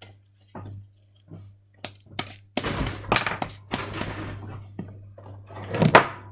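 Handling noises of slime-making on a tabletop: a few light knocks, then a couple of seconds of rough rustling and squelching, and a loud thump near the end.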